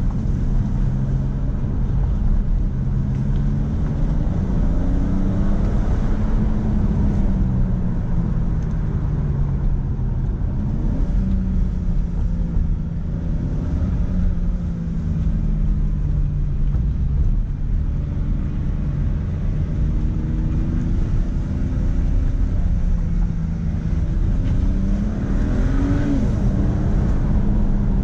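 BMW sedan driving, heard from inside the cabin: a steady low road and tyre rumble under the engine note. The engine pitch climbs under throttle and drops back a few times.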